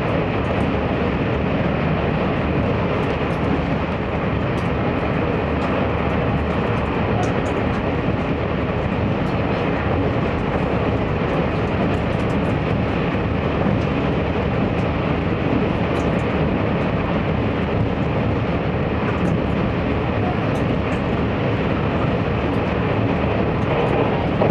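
Steady running noise of a Taiwan Railways DR3000 diesel multiple unit heard from inside the passenger cabin: underfloor diesel engine drone mixed with the rumble of wheels rolling on the rails, at an even level throughout.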